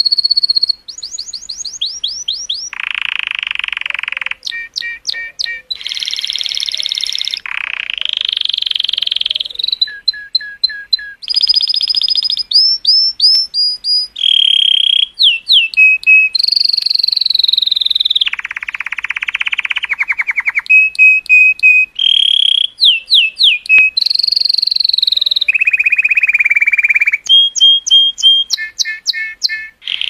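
Colour canary singing a long unbroken song, phrase after phrase: rapid runs of repeated falling notes, fast trills, and several longer harsh, buzzy rolls.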